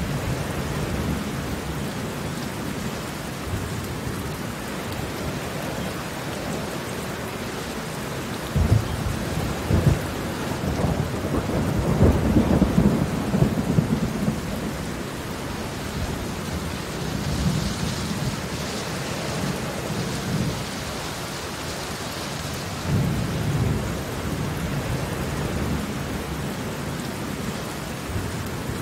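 Heavy rain falling on concrete pavement: a steady patter of raindrops on the wet surface. Deep low rumbles swell and fade several times over it, loudest from about nine to fourteen seconds in.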